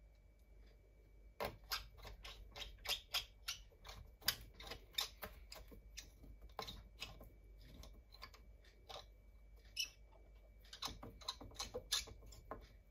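Quick, irregular small clicks and ticks of a precision screwdriver turning tiny screws into a MacBook Pro's aluminium bottom case. They start about a second and a half in, pause briefly in the middle and pick up again.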